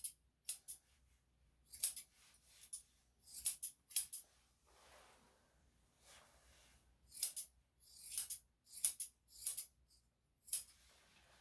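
Grooming scissors snipping the hair on a Yorkshire Terrier's ear: short, crisp snips, often in quick pairs or clusters, with pauses between.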